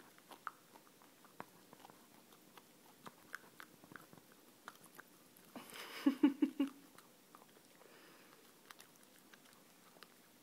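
Miniature dachshund chewing and biting a pupcake: scattered small crunching and smacking clicks, with a louder, brief run of rapid chomps about six seconds in.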